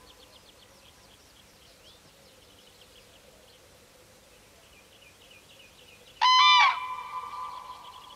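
A common crane gives one loud trumpeting call about six seconds in, its ringing note lingering and fading over the next second or so.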